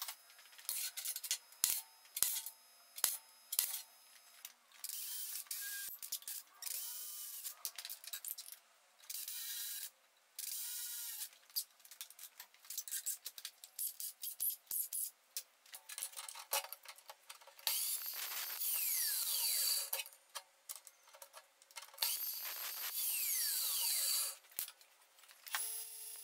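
Cordless drill running in several bursts of one to three seconds, drilling holes through a small piece of steel angle for a bracket, between clicks and knocks of the work and tools being handled.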